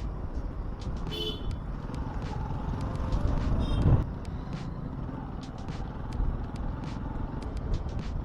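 Motorcycle riding in town traffic: steady engine and road rumble, with two short vehicle-horn beeps about a second in and shortly before the middle. The rumble swells and cuts off suddenly about four seconds in.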